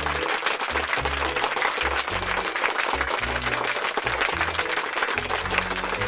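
Crowd applause sound effect, a dense clapping that stops abruptly near the end, laid over background music with a low bass line.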